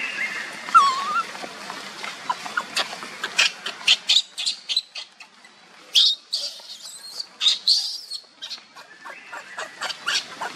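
Infant macaque crying: repeated short, high-pitched squeaks and squeals, the loudest about six and eight seconds in, as a hungry baby begging to nurse.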